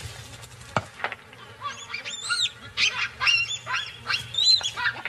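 Baboons screaming: a rapid string of short, high shrieks rising and falling in pitch, starting about a second and a half in. These are alarm and distress calls at a crocodile attack on one of the troop.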